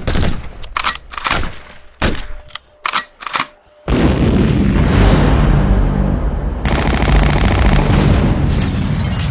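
Gunfire sound effects: a run of about a dozen sharp, irregular shots over the first four seconds. Then, about four seconds in, a loud continuous rumble starts, with music-like low notes over it from a little before the seventh second.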